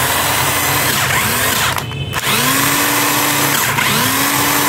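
Cordless impact wrench running free with no load: its motor spins up, holds speed and winds down over several trigger pulls, with a short break about two seconds in. It has no speed control, so each pull goes straight to full speed.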